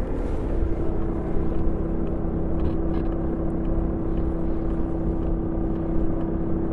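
Honda Gyro scooter's single-cylinder engine running steadily, with a constant whine over the engine noise. The owner takes the whine for the cooling fan rubbing.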